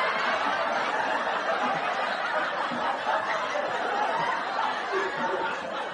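A crowd of many voices laughing and chattering at once, steady throughout.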